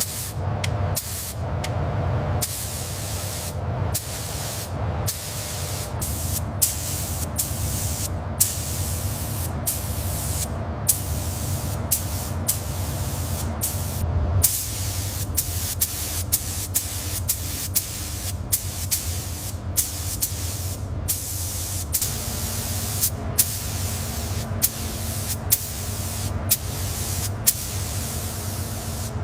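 Compressed-air tool hissing in repeated bursts of one to two seconds, broken by short pauses, over a steady low hum.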